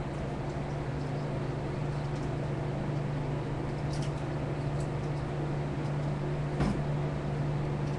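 Steady low mechanical hum of room machinery, with a few faint clicks and one sharper click about two-thirds of the way in as a fishing rod and its line are handled.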